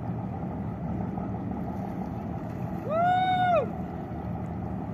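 Steady low hum of boat engines running on the water. About three seconds in, one loud, drawn-out call rises in pitch, holds and falls away.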